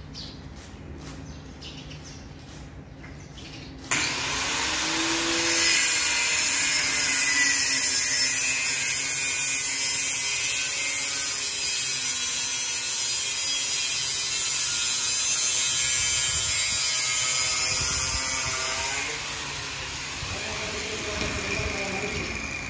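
A bench-mounted metal cut-off saw cuts through a stainless steel pipe. It starts suddenly about four seconds in, runs loud and steady with a shifting whine, then eases off and winds down near the end.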